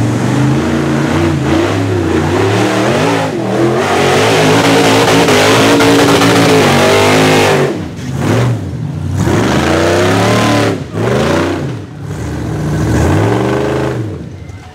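Rock bouncer buggy's supercharged 6.0-litre V8 revving hard as it climbs, the pitch rising and falling again and again. It holds high revs for a few seconds in the middle, then drops off and comes back in shorter bursts, letting off sharply several times near the end.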